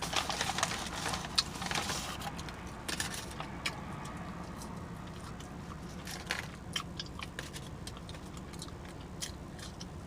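Close-miked chewing and lip smacking of a mouthful of food: quick wet clicks come thick in the first few seconds, then sparser.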